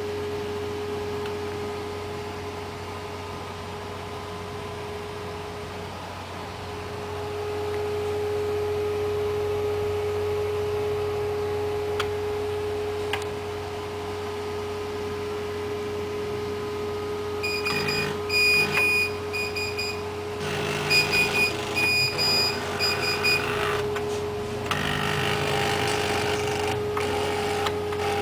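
A steady hum runs throughout. From about two-thirds of the way in, a floppy drive's stepper motor, driven through a PC's parallel port, runs in short bursts with a high-pitched whine, starting and stopping several times as it pans a small webcam.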